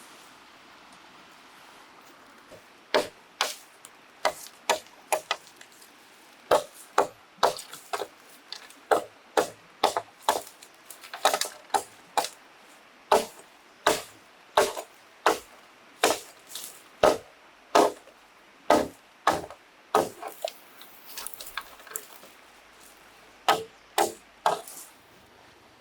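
Sharp chopping strikes of a blade into bamboo, one to two a second in a long steady run. They start a few seconds in and break off briefly near the end before a last few strikes.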